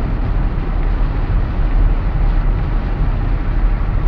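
Steady road noise inside a moving car: the engine's low hum and the tyres hissing on wet pavement, with no breaks or changes.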